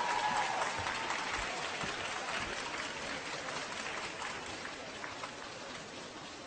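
Crowd applause, many hands clapping, dying away gradually.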